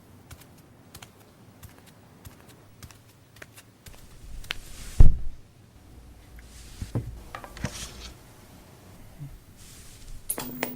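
Irregular light clicks and taps, with one heavy thump about five seconds in.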